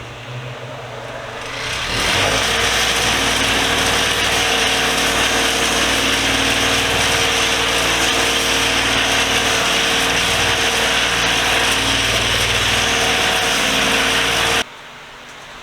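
Bench grinder with a wire wheel running, the motor coming up to speed over the first two seconds, then a steady loud hiss and hum as a steel wrench or socket is brushed clean on the wheel. It cuts off abruptly near the end.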